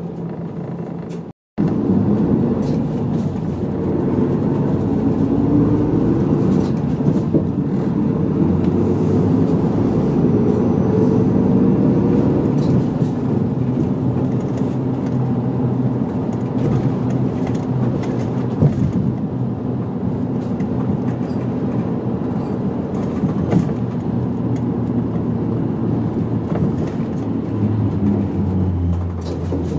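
Mid-size route bus heard from inside the cabin: engine and road noise as the bus drives, the engine note rising and falling as it accelerates through the gears. The sound cuts out for a moment about a second in.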